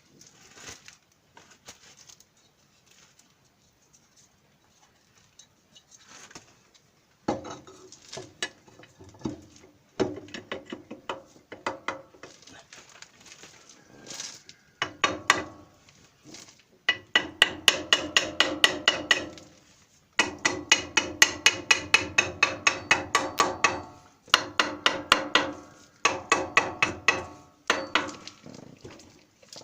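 Hammer striking metal on a power tiller's wheel assembly. Faint scattered taps come first, then from about seven seconds in there are quick runs of blows, about five a second, each with a ringing metallic tone, broken by short pauses.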